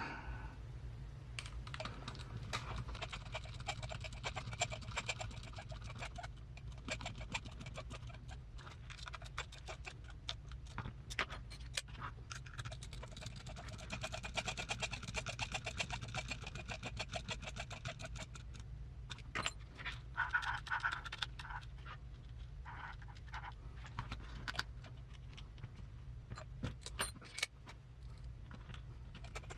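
Small metal parts and screws of an RC crawler transmission clicking and rattling as they are handled and screwed together, over a steady low hum.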